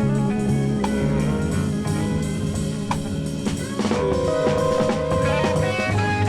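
Blues band playing an instrumental break: guitar lines over a steady stepping bass line and drum kit, with no singing.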